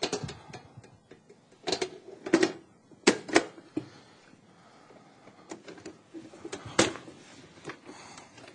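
Sheet-metal clicks and knocks from an HP Integrity server blade being handled by hand: latches, covers and panels snapping and clattering in an irregular series, the loudest pairs about two and three seconds in and another near seven seconds.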